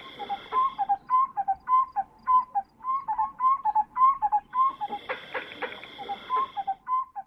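A bird gives a repeated whistled call, short notes alternating higher and lower at about two a second. A high, steady buzzing comes in twice underneath it.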